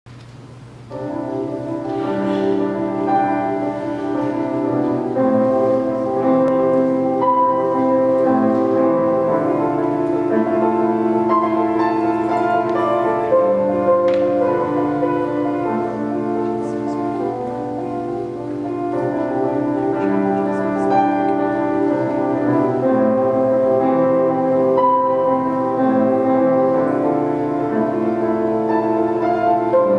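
Solo grand piano, a Bösendorfer, played at a moderate pace with sustained, overlapping notes. It begins about a second in.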